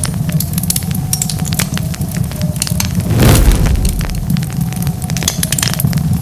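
Wood fire crackling with many sharp pops and snaps over a steady low rumble of burning. A little over three seconds in, a louder rush of noise swells up for about half a second.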